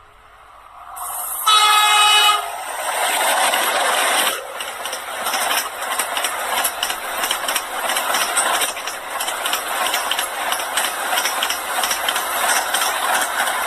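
Vande Bharat Express electric train sounding its horn in one short blast about a second and a half in, then running past at high speed: a loud, steady rush of wheel and air noise with rapid clicking of wheels over the rail joints.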